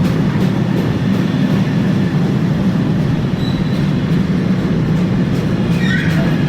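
A train passing at close range: a steady, loud rumble of wheels on the rails, with a brief high squeal near the end.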